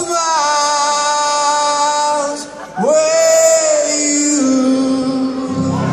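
A singer's voice amplified through a large outdoor PA, holding two long sung notes that each slide up into pitch and hold for about two seconds, with acoustic guitar accompaniment.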